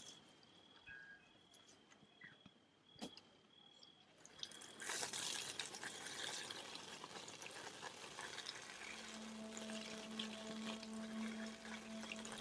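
A couple of clicks from the tap's valve being worked, then water starts running from an outdoor standpipe tap about four seconds in and pours steadily. About halfway through, a low steady hum joins the rush of water.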